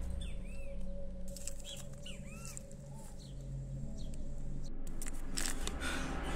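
Small birds chirping over a low steady hum. Paper crinkles as a folded note is handled and opened, once early and again near the end, while a swell of noise rises toward the end.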